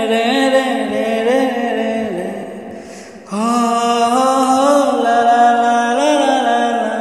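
A solo voice sings a wordless melody without accompaniment, in long held phrases that slide in pitch. The first phrase fades out about two seconds in, and a new one starts at full strength about three seconds in.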